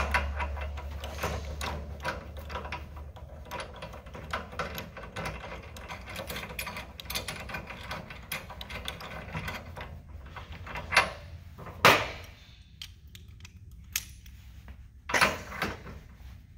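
Small metal clicks and rattles of a lock washer and steel nut being threaded onto a hitch pivot bolt and run down with a deep-well socket and extension turned by hand, then a few sharper metal clanks in the last third as the socket and ratchet are fitted.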